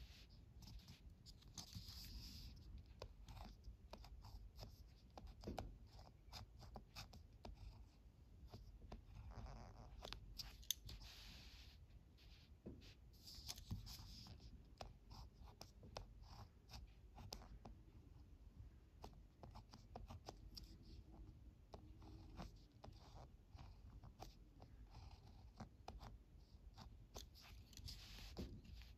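Faint scratching of a ballpoint pen writing on paper, stroke by stroke, with small taps and brief pauses between characters.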